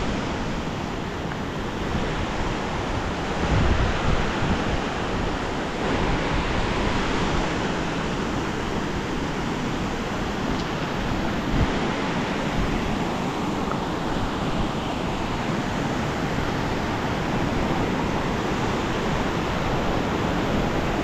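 Steady rushing of a glacial meltwater stream, with gusts of wind buffeting the microphone.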